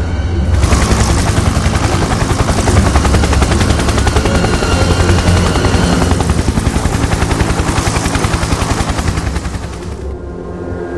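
Loud, fast, even rattle over a low rumble, the battle sound of combat footage; it drops away about ten seconds in.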